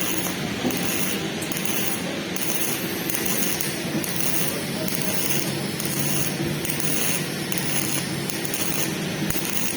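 Electric arc welding: the arc giving a steady crackling hiss.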